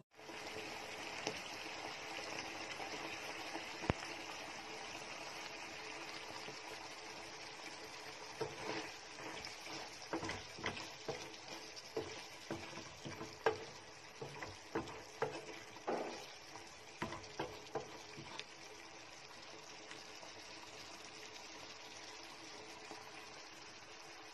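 Canned tuna and eggplant sizzling steadily in a frying pan. About eight seconds in, a utensil starts stirring, tapping and scraping against the pan for some ten seconds.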